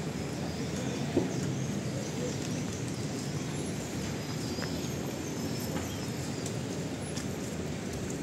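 Steady low rumble of city background noise, with a sharp click about a second in and a few faint high squeaks.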